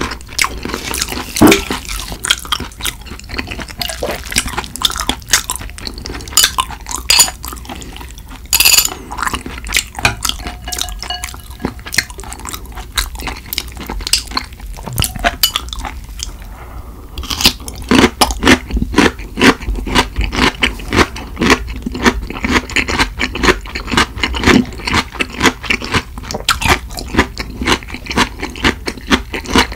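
Close-miked eating: chopsticks tapping a glass dish, and cold yeolmu (young radish kimchi) noodles slurped and chewed with crunchy bites. The mouth sounds come thick and fast from about halfway on.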